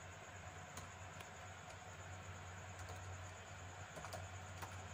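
Faint, scattered computer mouse and keyboard clicks as a block of code is selected and commented out, over a steady low hum.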